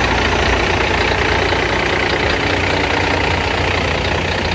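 Truck engine idling close by, a steady low drone as the truck creeps forward.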